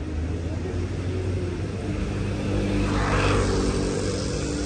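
Road traffic: a motor vehicle's engine passing on the road alongside, over a steady low rumble, getting louder to a peak a little past the middle and then easing off.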